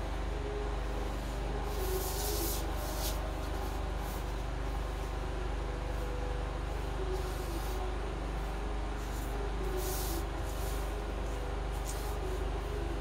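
A marker being drawn in short scratchy strokes along a ruler on pattern paper, over a steady low mechanical hum in the room.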